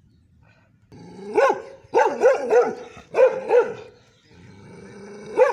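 A dog barking: about seven barks in quick runs of two or three, starting about a second in.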